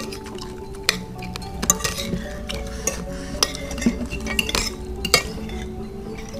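Metal spoons clinking and scraping on plates as several people eat, many short irregular clicks, over soft background music.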